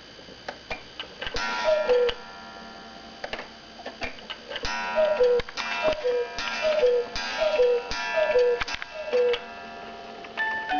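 Black Forest cuckoo clock striking the hour: the pendulum ticks, then the cuckoo calls again and again, each call two falling notes, with mechanical clacks from the moving works.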